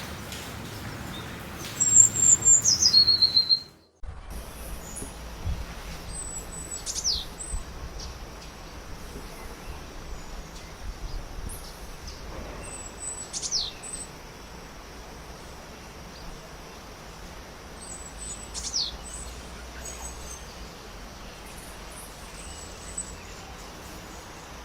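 Bird calls from two separate recordings. First comes a high call that steps down in pitch. After an abrupt cut come short high chirps and three sharp whistles sweeping downward, several seconds apart, over a steady outdoor background.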